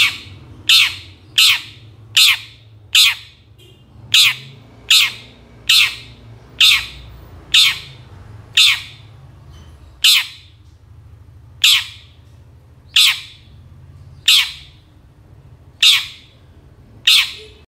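Long-tailed shrike (cendet) giving a short, harsh call over and over, about one call a second, spaced a little wider toward the end.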